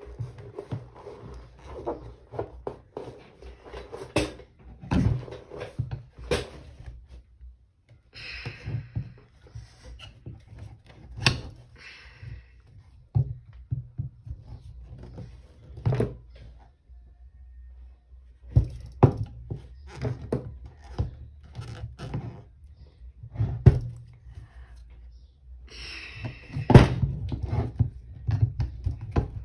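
Irregular thunks and knocks from a hoverboard hub-motor wheel being handled and shifted on a wooden table, with a few short scrapes.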